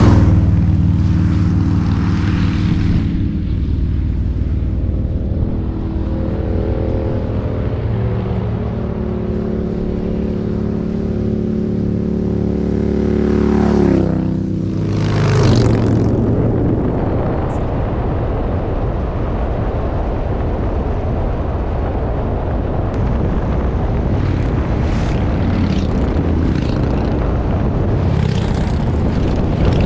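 Touring motorcycles passing on the road: one goes by right at the start, and another is heard coming on with a steady engine note, then passes about fifteen seconds in, its pitch falling. After that comes a steady rush of road and wind noise from a moving vehicle.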